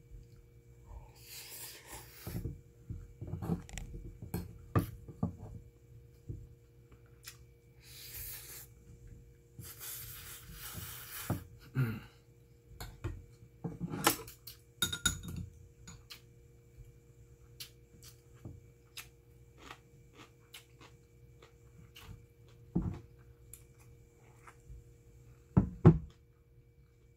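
Metal spoon scraping and clinking in a stainless steel bowl of soy sauce egg rice, with close-up chewing and mouth sounds between scoops. The sharpest clinks come near the end.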